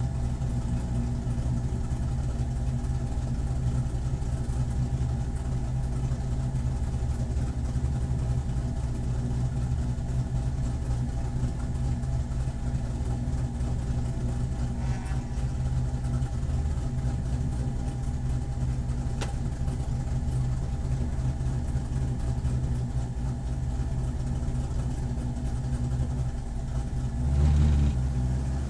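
Corvette C7 race car's V8 engine running steadily at low, even revs. Near the end it briefly gets louder and deeper for about a second.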